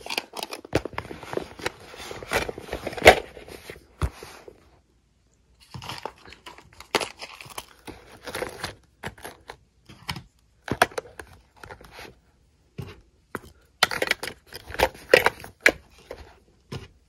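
Small items being packed back into a small leather crossbody handbag: rustling and crinkling with sharp clicks and taps, in several bouts with brief pauses between them.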